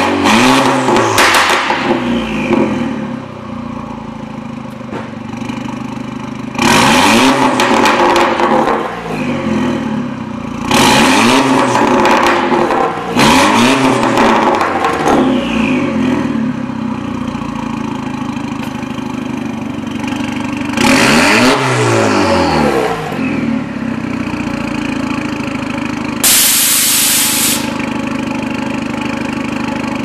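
Audi A4 B8 sedan's engine through an aftermarket Armytrix quad-tip exhaust, idling and revved hard five or so times, each rev rising and falling back to idle. A short hiss near the end.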